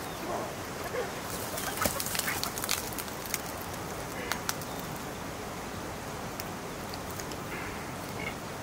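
A few sharp knocks and scrapes from a stick stirring thick porridge in a metal cooking pot, bunched in the first few seconds, with birds calling now and then.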